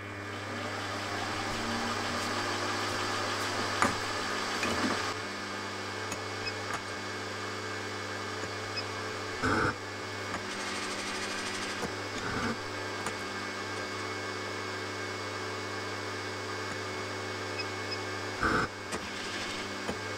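Milling machine's spindle motor running steadily while an edge finder locates the edges of the workpiece, with a few short knocks and clicks along the way.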